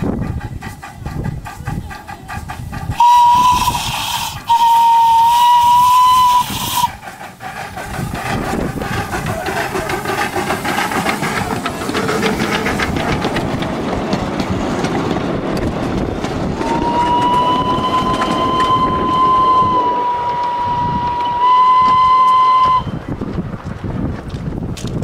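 Miniature railway locomotive's whistle blowing as the train passes: two blasts a few seconds in, the second longer, then a long blast and a shorter one near the end. Between the blasts the train and its carriages are heard running along the track.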